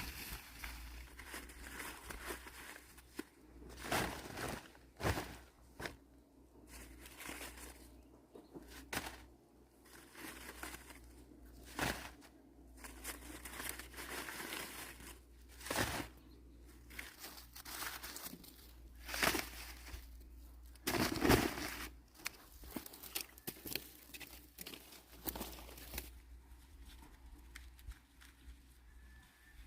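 Dry corn leaves and husks rustling and crackling in irregular bursts as they are handled. The loudest bursts come a little past the middle, and it is quieter for the last few seconds.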